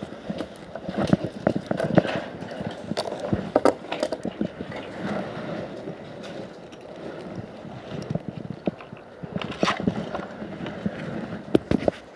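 Irregular knocks, clicks and scrapes over a rustling haze, with no steady motor running.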